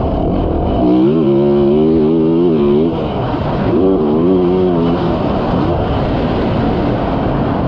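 Yamaha YZ450F's single-cylinder four-stroke engine under way on a motocross track, revving up twice: the pitch climbs about a second in and holds, drops near the three-second mark, then climbs again and falls off about halfway through.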